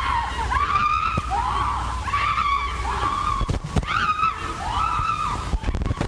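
High-pitched shrieks repeated over and over, each cry rising and then falling, with a couple of sharp knocks about three and a half seconds in.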